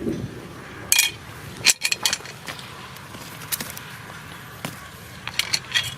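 Scattered sharp clicks and light knocks over a low hiss, several in quick succession about two seconds in and again near the end.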